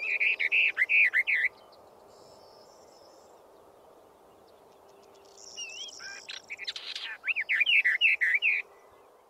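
Western Orphean warbler singing: a short phrase of quick, repeated warbled notes at the start, then, after a pause of about four seconds, a second similar phrase, over a faint steady hiss.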